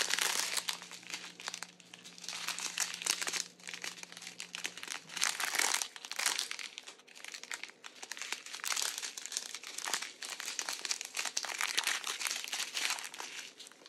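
Strips of small clear plastic packets of diamond-painting drills crinkling in irregular bursts as they are handled and turned over.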